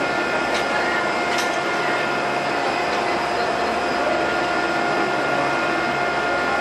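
Airbus A320 turbofan engines running at taxi idle: a steady whine of several high tones over an even rushing noise.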